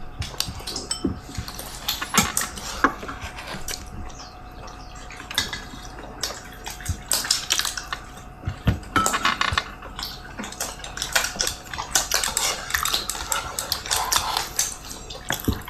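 Dishes and cutlery clinking and clattering, many short clinks, busier in the second half, over a faint steady hum.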